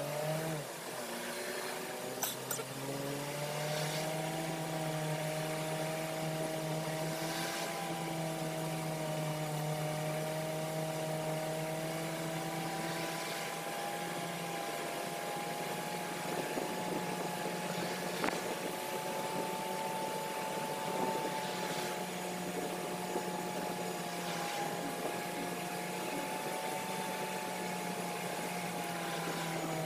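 A car running at highway speed, heard from inside the cabin: a steady droning hum with a whine over road hiss. The hum climbs in pitch over the first few seconds as the car picks up speed, then holds steady.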